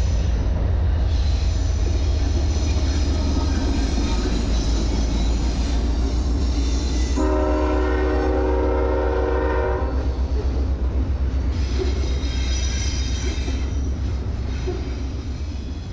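Train passing close by: a heavy, steady rumble from the locomotive and cars, with a train horn blowing for about three seconds midway through. The rumble fades off near the end.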